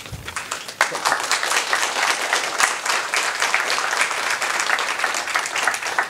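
Audience applauding: many hands clapping at a steady level.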